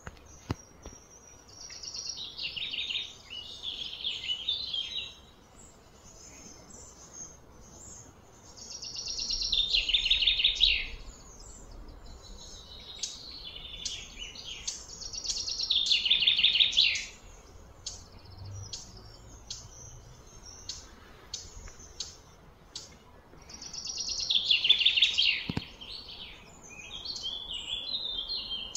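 Shrill outdoor wildlife calls: high pulsing trills, each swelling for two to three seconds and then breaking off, repeated about every six to eight seconds, with short high chirps in between.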